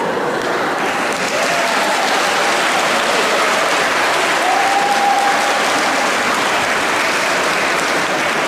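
An audience applauding steadily and loudly.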